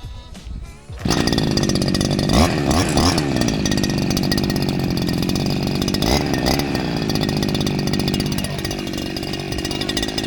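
Petrol strimmer engine catching about a second in and running loud and high-revving, its pitch rising and falling a few times as the throttle is worked.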